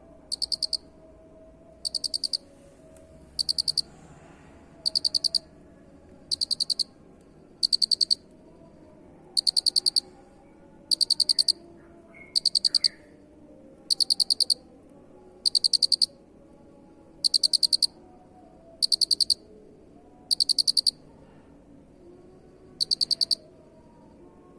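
A cricket chirping steadily: about fourteen short chirps, each a quick train of high, shrill pulses, repeating roughly every one and a half seconds.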